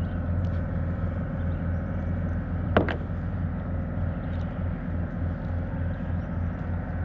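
Steady low motor hum with faint steady tones above it, and one sharp knock a little under three seconds in.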